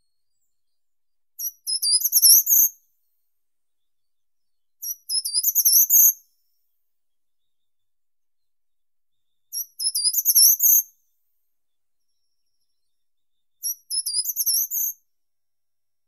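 Short-toed treecreeper singing: four short, high-pitched song phrases about four seconds apart. Each phrase is a quick run of notes that ends on a rising note.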